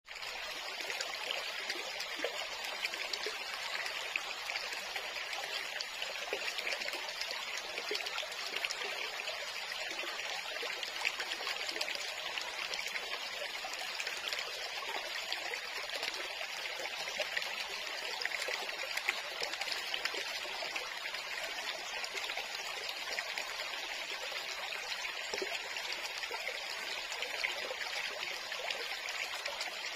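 Shallow stream trickling and babbling over rocks, a steady running-water sound.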